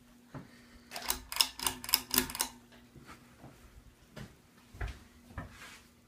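52-inch Hunter Colonial ceiling fan running with a faint steady hum. About a second in comes a quick run of sharp clicks lasting about a second and a half, followed by a few softer knocks.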